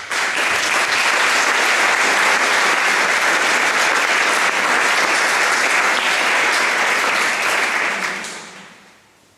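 Audience applauding, a steady, dense clapping that begins abruptly, holds for about eight seconds and then dies away.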